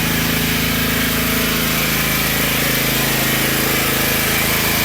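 Generac Mega Force 6500-watt generator's 13 hp GN-360 single-cylinder engine running steadily under load with a freshly done valve job, powering a house.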